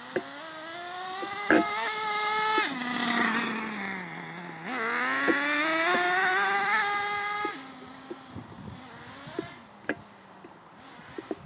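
Small two-stroke nitro engine of a Traxxas T-Maxx RC monster truck revving as the truck drives. It climbs in pitch twice, dropping back sharply after about two and a half seconds and again after about seven and a half, then settles to a low idle.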